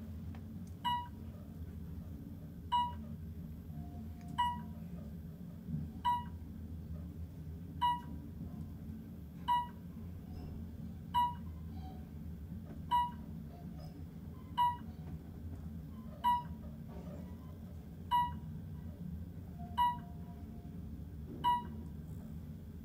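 Modernized Otis Gen2 service elevator car travelling down: a short electronic beep about every second and a half to two seconds, one for each floor passed, thirteen in all, over the steady low hum of the moving car.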